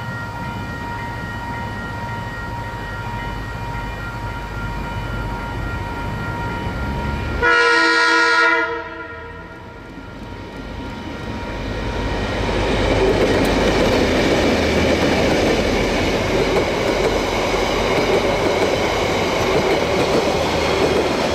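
KiwiRail DC-class diesel-electric locomotives approaching, sounding a multi-note horn once for just over a second about seven seconds in. Their engines and wheels then grow steadily louder as they come past, with rail clatter.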